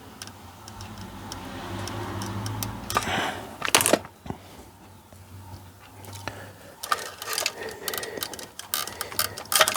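Clicks, taps and knocks of small plastic and metal parts being handled on a workbench: a sharper clatter of knocks a few seconds in, then lighter clicking near the end.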